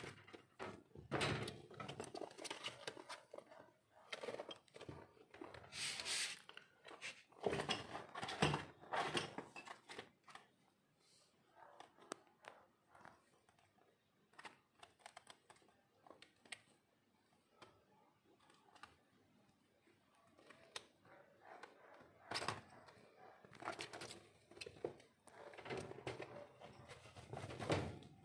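Irregular knocks, clicks and rustles of a wooden hanging hay rack and the wire bars of a guinea pig cage being handled, with a quieter stretch in the middle.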